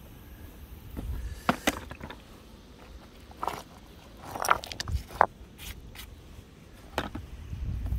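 River stones clicking and scraping together on a gravel bank, about seven sharp irregular knocks, some with a brief ring.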